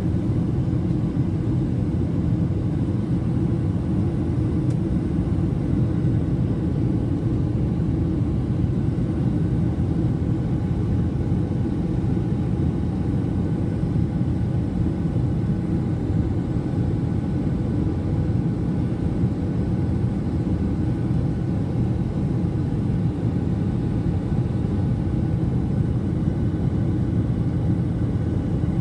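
Steady low roar inside a jet airliner's cabin in flight: engine and airflow noise, with a few faint steady hums over it and no change throughout.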